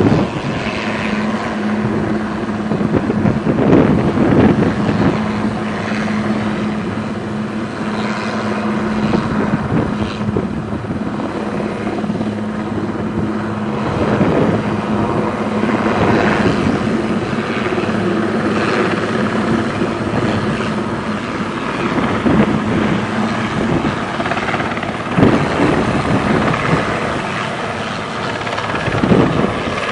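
Eurocopter AS532 Cougar twin-turbine medium helicopter hovering low, its main rotor and turbines making a loud, steady drone.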